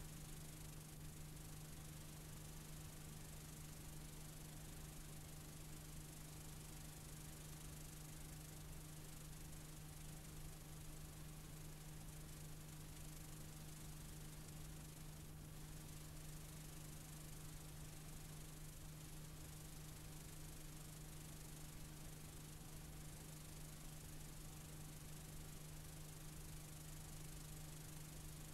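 Faint, steady hiss with a low constant hum from a blank stretch of videotape playing back.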